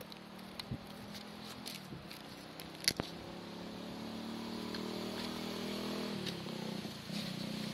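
Electric motor and gearbox of an RC rock crawler whining as it drives over rocks. The whine grows louder and drops in pitch about six seconds in. Scattered clicks and knocks come through, with one sharp click about three seconds in.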